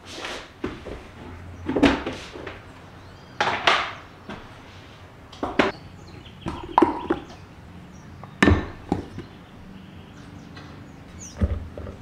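Kitchen handling sounds while scooping flour: a stainless steel mixing bowl, a plastic flour bin and a plastic measuring cup knock and clatter, about seven sharp knocks a second or two apart.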